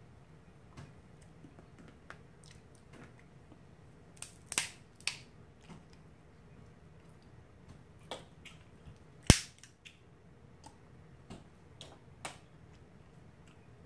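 Close-miked eating of crab legs and shrimp: scattered sharp clicks and cracks of shell snapping and mouth smacks, about half a dozen, the loudest about nine seconds in.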